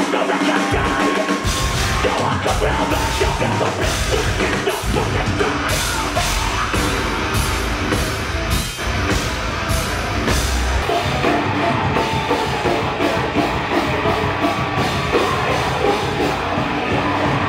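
Heavy metal music with a drum kit, dense and loud throughout, with regular drum hits.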